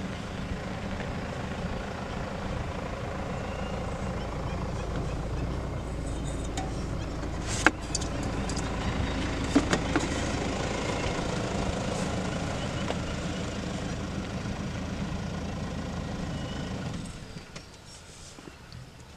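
Vehicle engine idling steadily, with a few sharp clicks about halfway through. The engine cuts out near the end.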